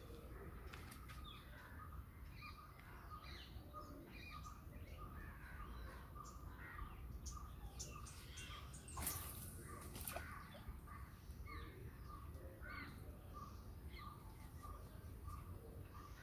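Faint birdsong outdoors: one bird repeats a short note about twice a second throughout, among scattered chirps and calls of other birds. About nine seconds in, a brief rush of noise rises over them for about a second.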